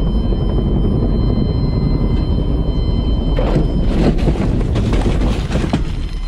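Heavy rumble of a small helicopter inside the cockpit, its rotor and engine running as it comes down low. About three and a half seconds in, the touchdown in tall dry grass: a burst of scraping and rustling as the skids hit and slide through the brush, lasting a couple of seconds before it eases.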